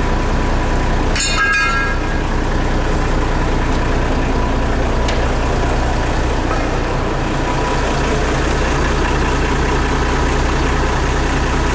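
Truck engine idling steadily, with a brief high squeal about a second in.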